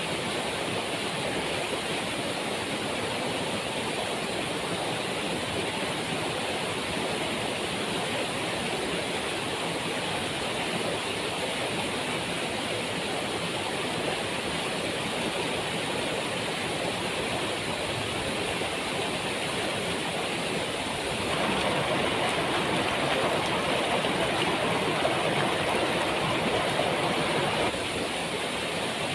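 Waterfall rushing steadily; it grows a little louder for several seconds in the last third, then falls back.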